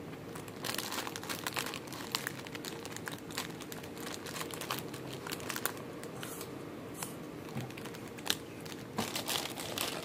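Thin plastic pouch of McDonald's apple slices crinkling as it is handled and torn open: a run of quick crackles, busiest about a second in and again near the end.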